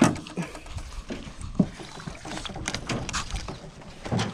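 Scattered knocks and clatter in a small flat-bottomed fishing boat, the sharpest knock right at the start and another about one and a half seconds in, as gear and feet move against the hull.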